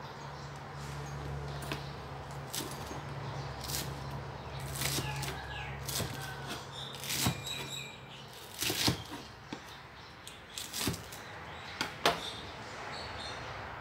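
A kitchen knife cutting crisp lettuce leaves on a plastic cutting board, with the leaves being torn and handled: irregular crisp cuts and taps, the loudest a few in the second half.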